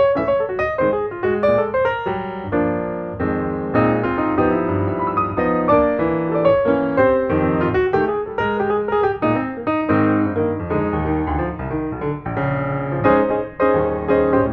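Background piano music: a quick run of notes, then fuller chords.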